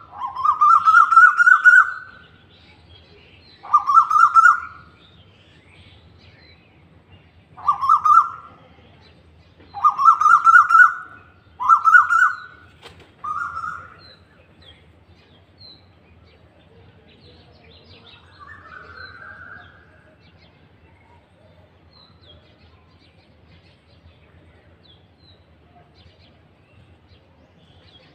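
Male Asian koel (koyal) calling: six loud calls, each rising in pitch, coming closer and closer together, then one fainter call a few seconds later.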